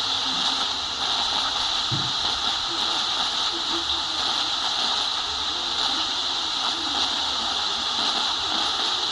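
Prunus portable radio's speaker giving steady loud static while tuned to a weak frequency, with the faint wavering trace of a distant station barely coming through the hiss.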